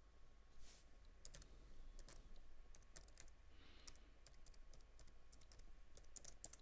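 Faint, irregular clicking and tapping of a computer keyboard and mouse as someone works at a PC, over a low steady hum.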